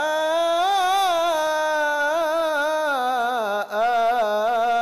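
A man's voice in mujawwad Quran recitation, holding a long melismatic vowel that wavers up and down in ornaments. The voice briefly breaks off about three and a half seconds in, then carries on.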